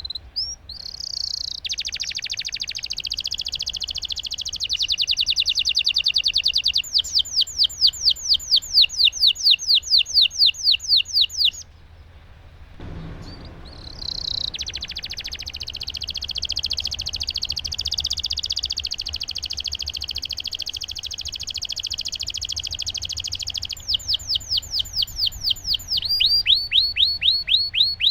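Domestic canary singing long rolling song: a fast continuous trill that switches to slower, evenly repeated down-slurred notes, then a short pause about halfway through and a second long roll that again ends in repeated slurred notes.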